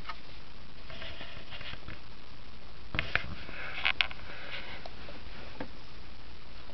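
A kitten and its mother cat scuffling in play: soft rustling and scratching, with a few sharp taps around the middle.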